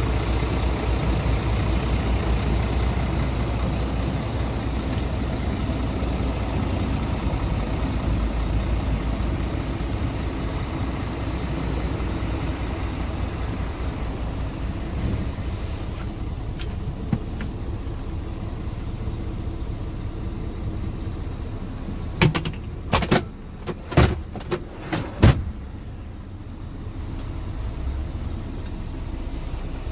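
Scania R truck's diesel engine idling steadily, somewhat quieter in the second half. A few sharp knocks come close together about three-quarters of the way through.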